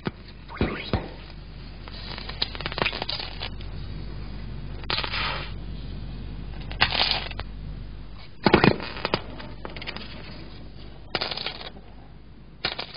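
Potassium reacting with water: a steady fizzing hiss broken by sharp crackling pops and short sizzling bursts every second or two as the metal skims over the water.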